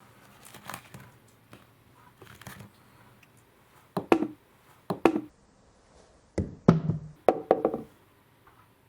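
Wooden marble-run pieces knocking and clattering in short clusters: a few soft taps at first, then several loud hollow knocks with a brief ring in the second half.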